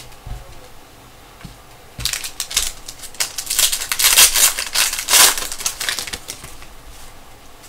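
Foil wrapper of a Panini Prizm basketball card pack being torn open and crinkled: a rapid crackling run that starts about two seconds in and dies away about a second before the end.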